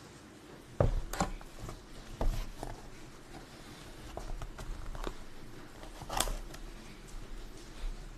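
Scattered clicks and light knocks of small objects being handled, a dozen or so irregular taps with a sharper knock about a second in and another about six seconds in, over a faint low hum.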